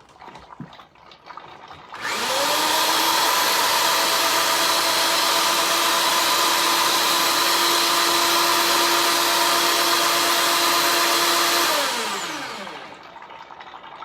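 Motor of a homemade ring-cutting machine switched on, spinning up with a rising whine and running steadily for about ten seconds. It then switches off and winds down with a falling whine.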